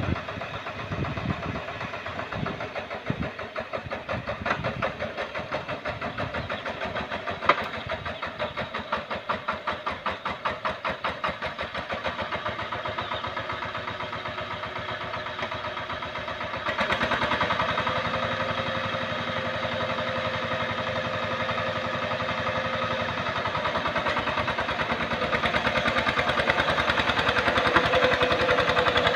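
Single-cylinder diesel engine of a two-wheel hand tractor (power tiller) running with a rapid, even chugging beat as it pulls through paddy mud. About two-thirds of the way through it gets clearly louder and stays that way, the engine working harder.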